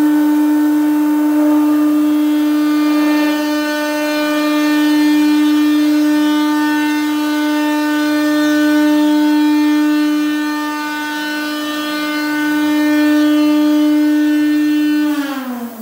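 MultiCam MG Series CNC router spindle running with a steady high whine, swelling and dipping slightly in level. Near the end the pitch falls quickly as the spindle spins down.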